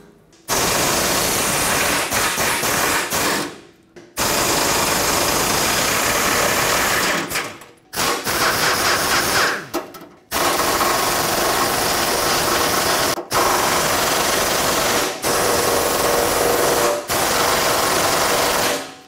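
Impact wrench hammering in long bursts, stopping briefly several times, as it breaks loose and spins out rusty crossmember mounting bolts.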